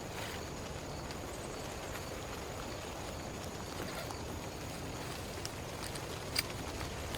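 Heavy rain falling steadily, with scattered drop ticks and one sharper tick about six seconds in.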